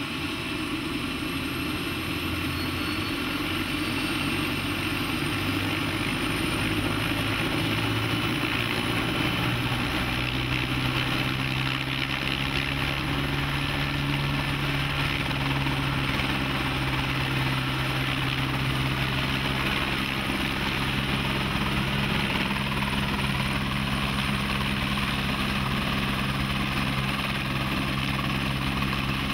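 Helicopter engine and rotor heard from inside the cabin as the helicopter lifts off and climbs. A high whine rises over the first several seconds, and the low steady hum of the rotor grows stronger about ten seconds in.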